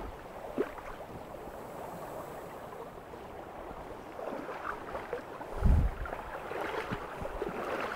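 Rubber waders wading through a shallow stream: water sloshing and splashing around the boots with each step, with one heavier low thump about two-thirds of the way in.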